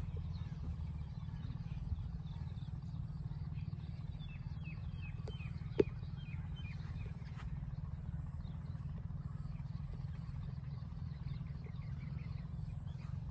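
Outdoor evening ambience: small birds chirping in clusters of short falling notes, over a steady low rumble. A single sharp click comes near the middle.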